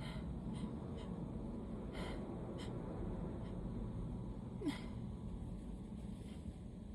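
A person's short, catching intakes of breath, about seven spread out, the loudest about two-thirds in: the hitching breaths of an allergy sneeze building up.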